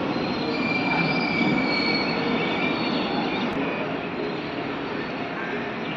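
Freight train of oil tank wagons rolling past on the rails, a steady rumble and rattle with a thin wheel squeal now and then, fading slightly as the end of the train moves off.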